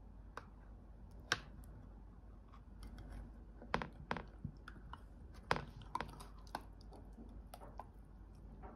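Metal knife and cake server clicking and scraping against a glass baking dish as a slice of soft chocolate-topped dessert is cut and lifted out. It is a scatter of small, sharp, irregular clicks, the loudest about a second in and more between about four and six and a half seconds.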